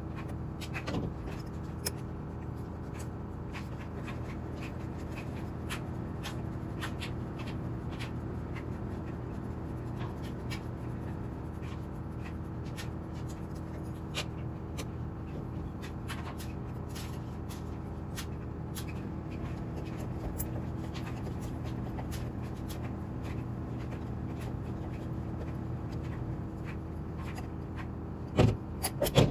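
Small ticks and clicks of a hex driver turning screws and of hands handling the shock tower and chassis parts of an RC buggy, over a steady low hum. A couple of louder knocks come near the end.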